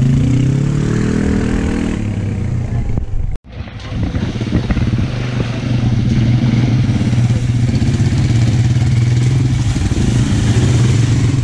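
ATV (quad bike) engine running, rising in pitch over the first couple of seconds as it speeds up. The sound cuts out abruptly for a moment about three and a half seconds in, then the engine runs on steadily.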